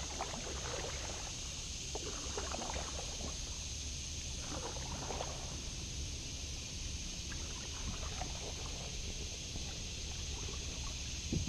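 Kayak paddle strokes in still water, the blade dipping and water trickling off it every second or two, with a louder knock right at the end.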